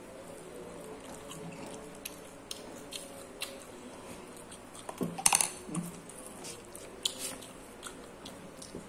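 Eating up close: chewing with scattered small clicks and smacks, and one louder short sound about five seconds in.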